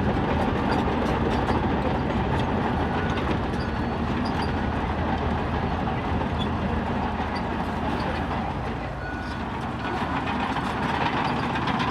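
Bulldozer's diesel engine running steadily, with scattered clanks and clicks over it.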